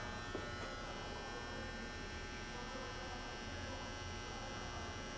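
Steady electrical hum with a set of faint steady tones from powered-up shop machinery, unchanging throughout, with one light click about a third of a second in.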